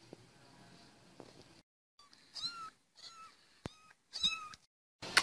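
A very young kitten mewing three times, in short high-pitched cries.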